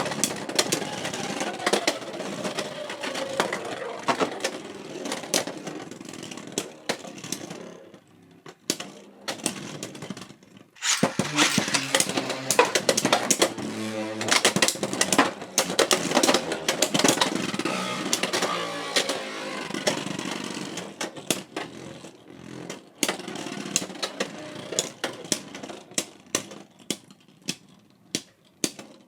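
Beyblade X spinning tops battling in a plastic stadium: a whirring hum that falls in pitch as they slow, over rapid clicking and clashing. The first battle dies away about eight seconds in, a fresh launch sets off a new clash about three seconds later, and the hits thin out near the end as the tops slow.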